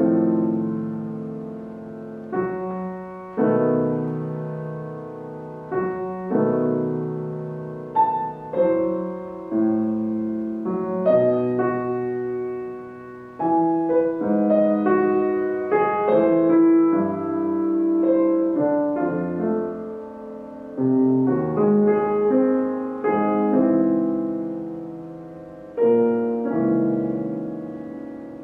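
Steinway & Sons grand piano played solo: a classical piece of chords and melody notes struck every one to three seconds, each left ringing and fading before the next.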